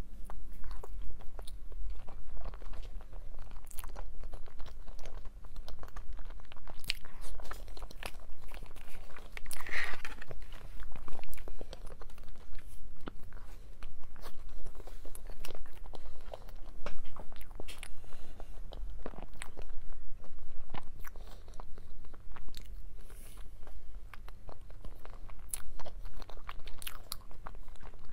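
Close-miked eating: a person biting into and chewing soft cream-filled sponge cakes, with many small irregular mouth clicks throughout.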